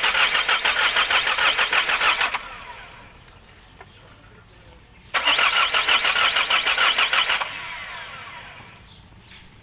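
Diesel car engine turned over on the starter motor twice, each time for about three seconds with a fast, even pulsing, and each time cut off without the engine settling into a run.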